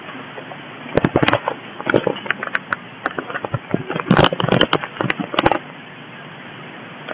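Irregular crackling and clicking of a phone being handled, its microphone rubbed and knocked, over a steady hiss, in clusters about a second in, around two seconds and again between four and five and a half seconds.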